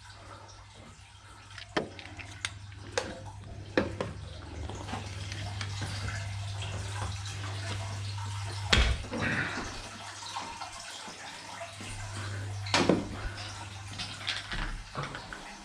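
Water running from plumbing, over a steady low hum, with several sharp knocks scattered through it; the loudest come about nine seconds in and again near thirteen.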